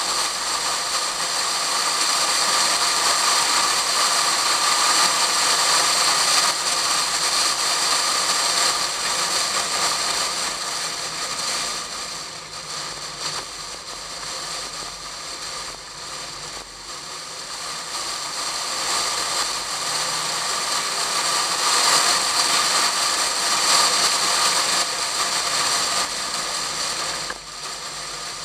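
Wind rushing and buffeting over an action camera in a waterproof case, strapped to the outside of a Pontiac Fiero at track speed. It is loud, eases for several seconds in the middle as the car takes a corner, builds again, and drops suddenly near the end.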